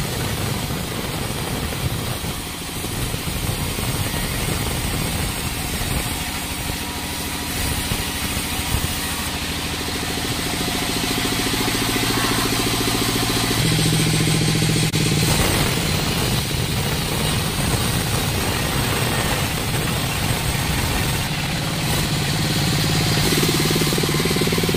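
Sawmill band saw running as a log is fed through it: a steady mechanical drone that grows heavier and louder about 14 seconds in.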